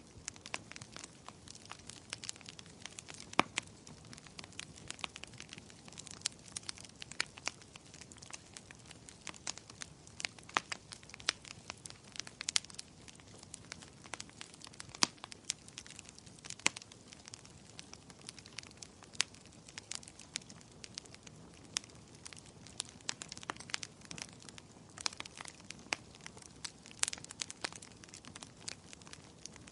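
Burning firewood crackling in a fireplace: irregular sharp pops and snaps, several a second, over a faint steady hiss of flames, with a few louder pops.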